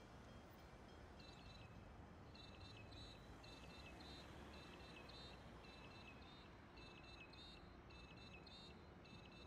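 Near silence, with a bird's faint, quick high chirps repeated in short runs, starting about a second in and going on to the end.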